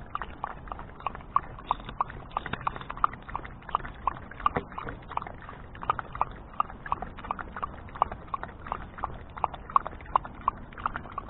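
Basenji dog lapping water from a plastic bowl: a quick, steady run of wet laps, about three to four a second.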